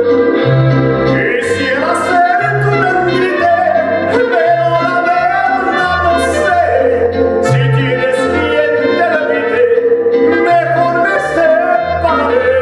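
Recorded Mexican popular song: a gliding melody line over a bass that alternates between two notes, with light cymbal strokes.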